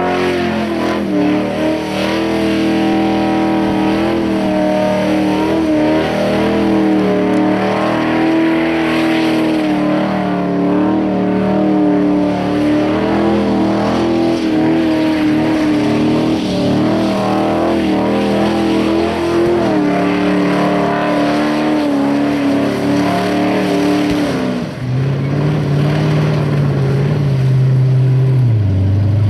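Ford XF Falcon's 351 V8 held at high revs in a burnout, the rear tyres spinning and squealing as it circles. The revs waver throughout, then drop sharply about 25 seconds in as the driver backs off.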